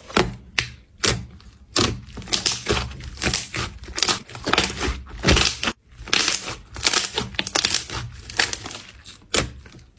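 Slime being squeezed and pressed by hand: an irregular series of sticky squishes and pops, roughly one or two a second.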